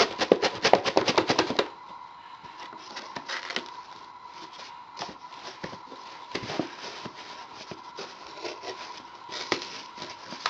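A fast, loud rattle of rapid clicks for the first couple of seconds, then faint scrapes, taps and rustles of a cardboard shipping box being handled as its packing tape is cut, over a faint steady high hum.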